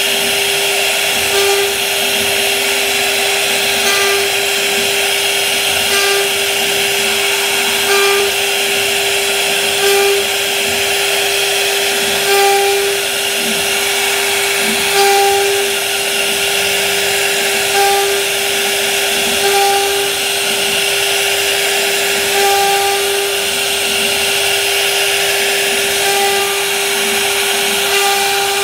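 CNC router spindle running at a steady high pitch as its bit cuts curving grooves into a wood panel, with brief swells in the cutting noise every couple of seconds.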